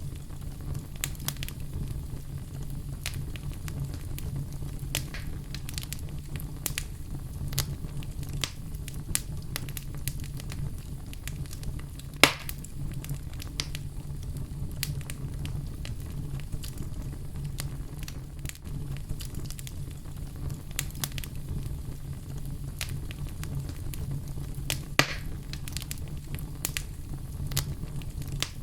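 Wood fire in a fireplace crackling: scattered small snaps and clicks over a low steady rumble, with two louder pops, one near the middle and one near the end.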